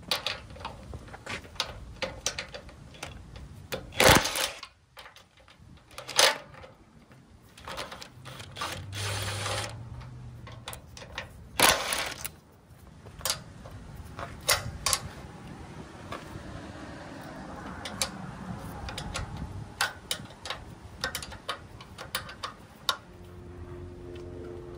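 Cordless DeWalt impact wrench with a 14 mm socket hammering out the bolts of a trailer tongue jack in several short bursts, amid clicks and knocks of metal on metal.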